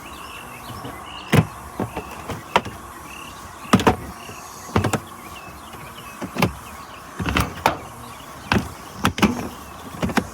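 Plastic storage totes being handled: a dozen or so sharp knocks and clicks of hard plastic at irregular intervals over a steady background hum.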